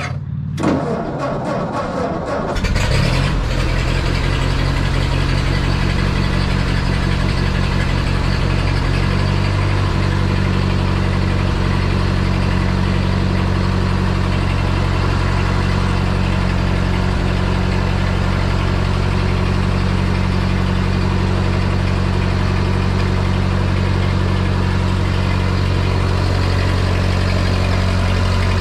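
1952 Ford 8N tractor's four-cylinder flathead engine, cold, cranked on its 6-volt starter for about two seconds before it catches. It then runs on and settles into a steady idle.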